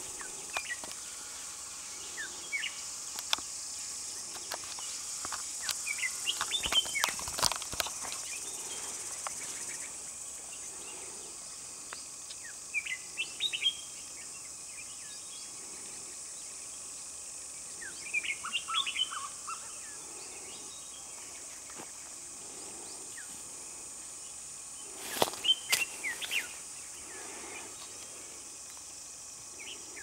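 Small birds chirping and calling in short bursts every few seconds, over a steady high drone of insects. A few sharp clicks come among the calls, the loudest near the end.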